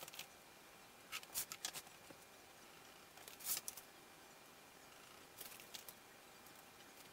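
Faint clicks and short rasps of hand tools handled on a wooden workbench: a steel tape measure's blade pulled out and let run back, and a metal combination square set down. They come in three brief clusters.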